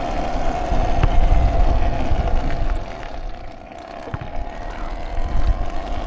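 Talaria electric dirt bike's motor whining steadily while riding, with wind buffeting the microphone. The whine and rumble ease off about halfway through.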